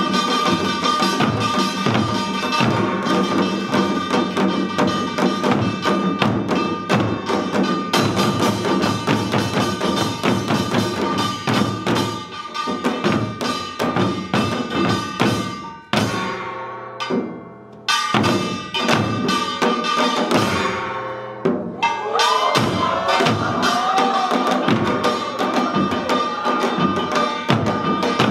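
Korean samulnori percussion ensemble playing janggu hourglass drums in a fast, dense rhythm, with a metal gong ringing steadily above the drumming. The playing thins out and drops back past the middle, then picks up to full strength again.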